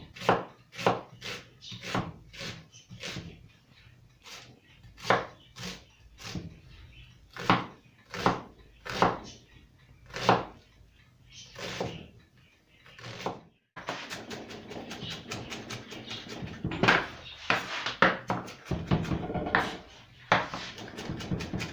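Kitchen knife cutting a red onion on a wooden cutting board, each stroke knocking on the wood about twice a second. About 14 seconds in, the strokes turn fast and dense as the onion is chopped fine.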